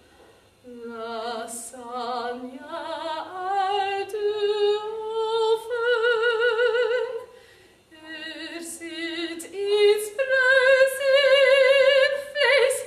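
A woman singing solo and unaccompanied in a classical operatic style, with wide vibrato on long held notes. The phrases break briefly about half a second in and again around eight seconds, and the last phrase holds a higher note.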